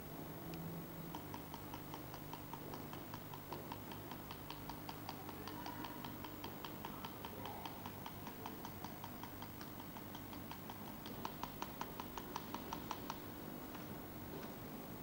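Rapid, even clicking taps, about five a second, from a hand tool (a foil-wrapped metal pot on a wooden stick) worked across a lacquered wooden panel. The taps grow louder near the end and stop shortly before it, over a low steady hum.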